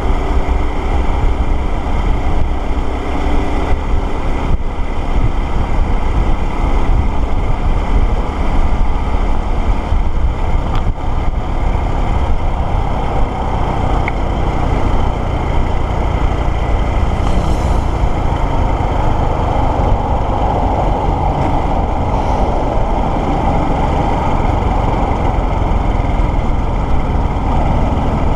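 Motorcycle riding along a busy highway: its engine running steadily under road and traffic noise.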